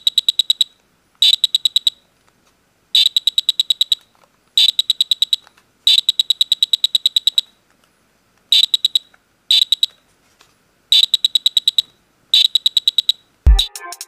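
Small piezo buzzer on a homemade IR remote-control receiver circuit, set off by the remote's button presses: about nine short bursts, each a fast train of high-pitched beeps, with brief gaps between. Music starts just before the end.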